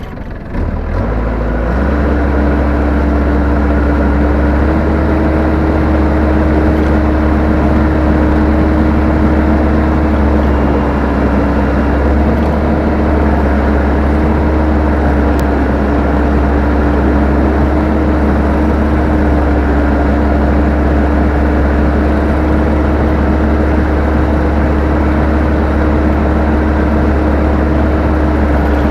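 Combine harvester engine and machinery, heard from the operator's seat, coming up to speed over the first two seconds and then running steadily with a constant hum.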